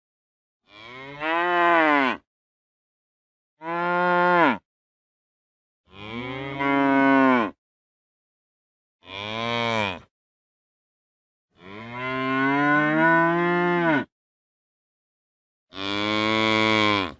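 A heifer mooing six times, each call lasting one to two and a half seconds and dropping in pitch as it ends, with silent gaps between the calls.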